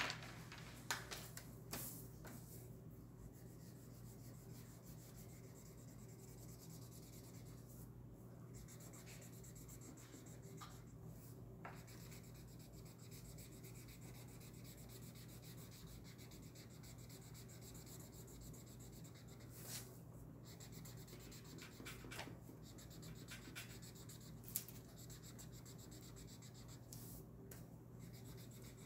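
Felt-tip marker rubbing back and forth on paper in quick scratchy strokes, colouring in, with a few light knocks on a wooden table. A faint steady hum sits underneath.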